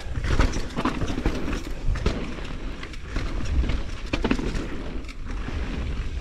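Focus SAM² electric mountain bike riding fast down a dirt trail: tyres rolling over dirt and roots, with the bike rattling and knocking over bumps and a low wind rumble on the microphone.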